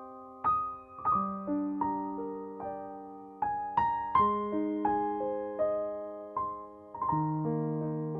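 Background music: a slow, gentle solo piano piece, its notes and chords struck about once a second and left to ring and fade.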